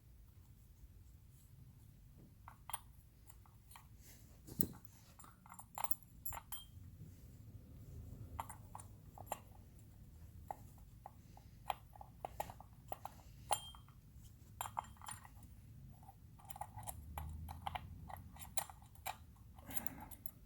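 Irregular small clicks and metallic clinks of a hex key and small screws being worked out of a mini winch's slip-ring housing.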